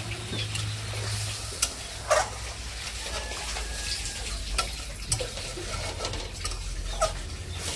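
Metal spatula stirring a thin yogurt fish gravy in a metal kadai, knocking and scraping against the pan about five times, over the steady hiss of the gravy heating up toward the boil.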